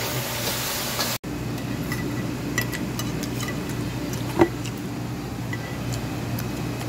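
A wok hisses for about a second. Then metal utensils click and tap against a ceramic plate over a steady low room hum, with one louder clink a little past the middle.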